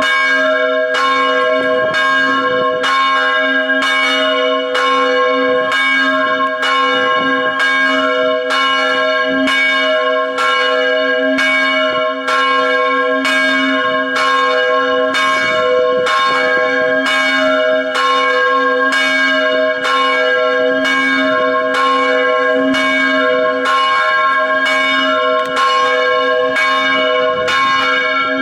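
Church bell ringing in a steady, even rhythm, a little over one stroke a second, each stroke ringing on into the next.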